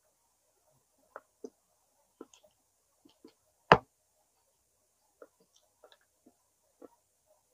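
Mouth sounds of someone eating smoked chicken: short, irregular wet clicks and smacks of chewing, with one much louder sharp click about three and a half seconds in.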